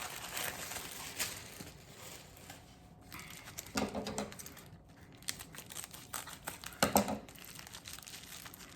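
Tissue paper rustling and crinkling as it is unwrapped by hand, with two short vocal sounds about four and seven seconds in.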